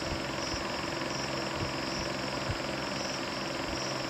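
Crickets chirping in a steady pulsing rhythm, about two chirps a second, over a low steady hum, with a few faint knocks.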